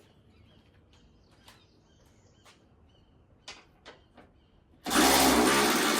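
A few light clicks and faint bird chirps, then about five seconds in a power tool's motor starts suddenly and runs loud and steady, likely driving a 10 mm socket on the truck's body bolts.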